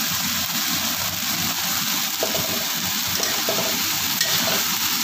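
Water spinach stir-frying in a hot pan: a steady sizzle as the greens are tossed, with a few faint knocks.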